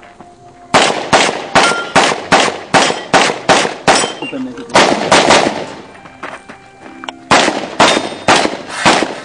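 Gunshots from a competitor shooting a practical shooting (IPSC) stage: a fast string of single shots, about three a second, starting about a second in, a short burst around the middle, a pause of more than a second, then another fast string near the end.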